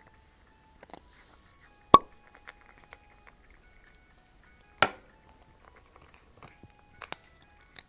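A cat eating close to the microphone: sharp clicks of chewing and mouth sounds, the two loudest about two seconds and five seconds in, with smaller ones near the end, over soft background music.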